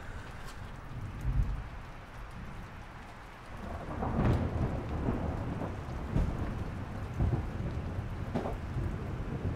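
Steady rain with low rumbling thunder that swells about four seconds in and stays louder afterwards.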